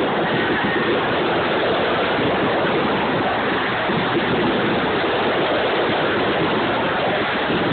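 Fireworks display and the crowd watching it, blended into a steady, dense wash of noise through a phone microphone, with no single bang standing out.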